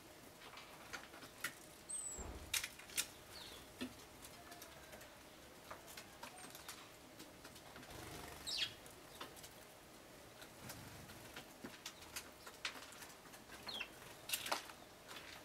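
Small garden birds, Japanese white-eyes and Eurasian tree sparrows, fluttering their wings and making small scattered clicks, with a few brief high chirps.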